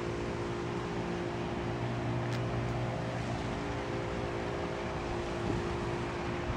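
A steady motor hum over a haze of background noise.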